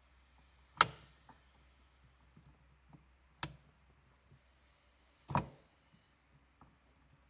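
Three sharp knocks and clicks, the loudest about a second in, with fainter ticks and a soft hiss between them, from handling and fitting the main shift cable onto a Honda Accord's manual shifter in a cramped console.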